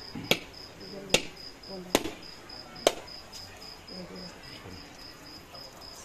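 A cricket chirping steadily in a high, even pulse of about four chirps a second. Four sharp knocks come about a second apart during the first three seconds.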